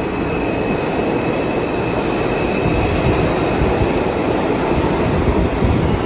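R142 subway train pulling out of the station and running away down the tunnel: a steady heavy rumble of wheels on rail, with a thin high whine that fades over the first few seconds.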